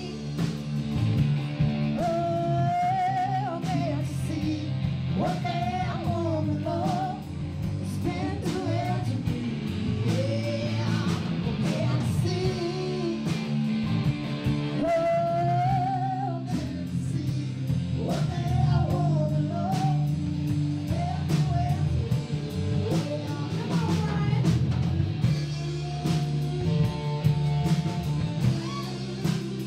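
Live rock band playing: a woman sings lead over strummed acoustic guitar, electric guitar, electric bass and a drum kit keeping a steady beat.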